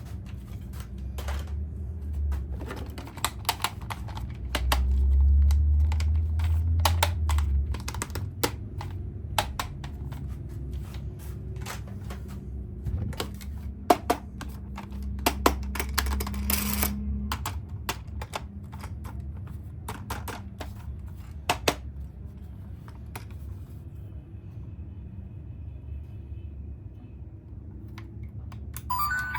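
Irregular clicks and taps of plastic toys and packaging being handled, over a low rumble that swells for a few seconds about five seconds in. The clicks thin out and stop in the last several seconds.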